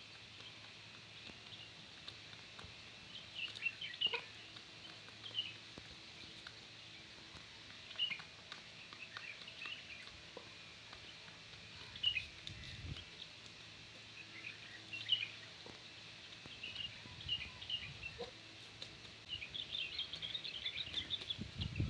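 Small birds chirping in short, high, scattered calls over a quiet outdoor background, the chirps growing busier near the end.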